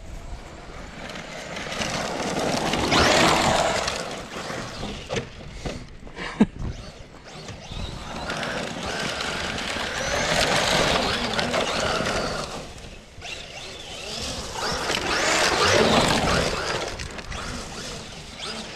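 Traxxas Maxx Slash RC short-course truck's brushless electric motor whining as it drives past three times on dirt, each pass rising and falling, with tyres spraying gravel. A single sharp click about six seconds in.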